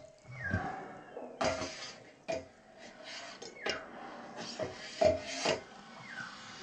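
Noodles being eaten fast: a string of short rasping slurps, roughly one or two a second, some ending in a brief falling squeak.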